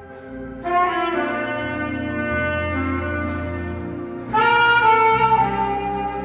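Solo saxophone playing a slow melody of long held notes over a low sustained accompaniment. A new phrase comes in just under a second in, and the loudest phrase starts about four seconds in.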